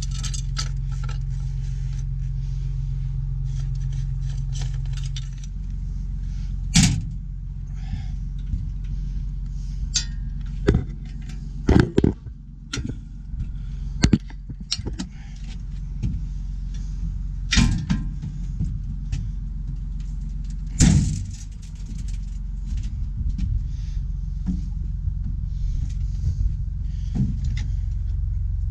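An engine idling steadily, with a series of sharp knocks and clanks over it, the loudest about a third of the way in and again near the middle.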